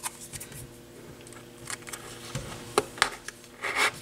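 Small clicks from handling card shims, then short scraping rubs near the end as a card shim is pushed into the voice coil gap of a woofer.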